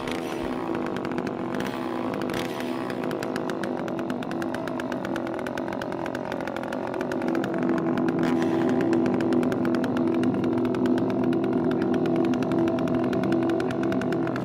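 Chainsaw running steadily with a slightly wavering pitch, growing a little louder about halfway through.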